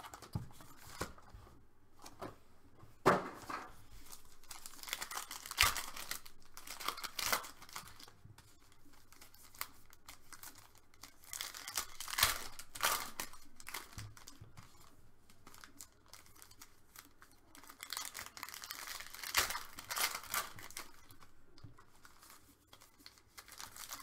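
Foil wrappers of Panini Elite Extra Edition baseball card packs being torn open and crinkled by hand, a string of sharp tearing and rustling crackles.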